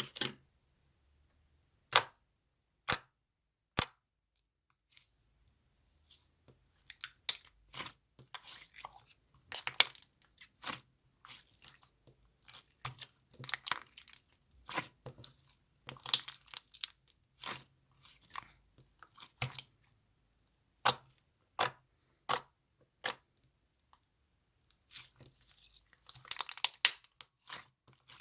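Clear slime being squished and pressed by hand: sharp sticky pops and clicks, a few spaced out at first, then a dense run of crackling pops from about seven seconds in.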